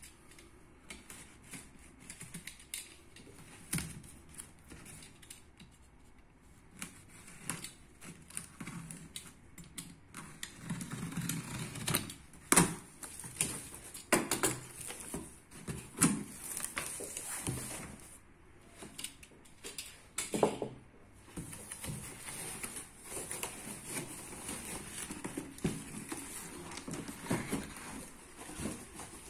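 Cardboard shipping box being opened by hand: the packing tape slit and the flaps pulled open, the cardboard rustling, scraping and creasing, with irregular clicks and knocks. The sharpest knock comes about twelve seconds in.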